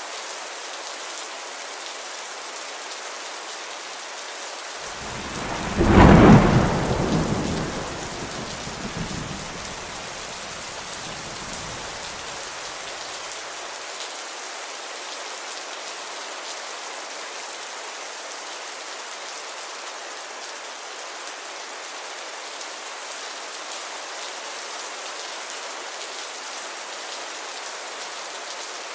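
Steady rain falling, with a single roll of thunder about five seconds in that swells quickly, peaks a second later and rumbles away over the next several seconds.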